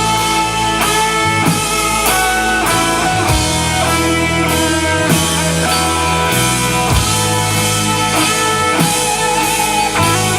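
Band music without vocals: guitars over bass and a drum kit keeping a steady beat.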